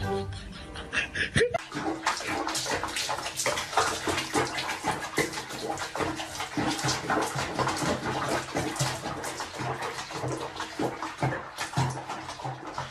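Water splashing and sloshing in a small tub as a cat is bathed in it, starting about a second and a half in after a short stretch of fading music.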